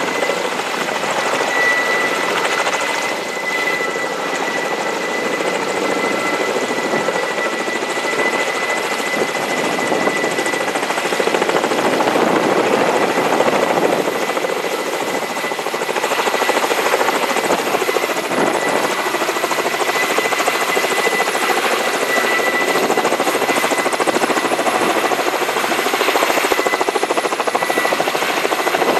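Kamov Ka-32A helicopter hovering low and settling onto the pad, its coaxial contra-rotating rotors and twin turboshaft engines running loud and steady, with a high steady turbine whine over the rotor noise.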